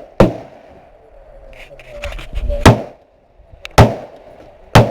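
Four single gunshots at irregular intervals, each a sharp crack with a short echoing tail.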